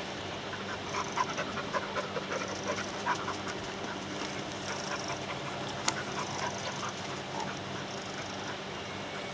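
Common ravens calling in flight: a run of short, harsh croaks in the first few seconds, over a steady hiss. There is a single sharp click about six seconds in.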